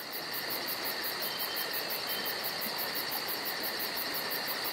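A chorus of singing insects: a steady high buzz with a faster, very high trill above it pulsing about five times a second.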